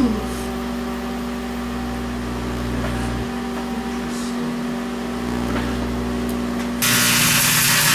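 Microwave oven running with a steady electrical hum while heating metal staples. Near the end a loud hissing crackle sets in for about a second: the staples arcing inside the oven.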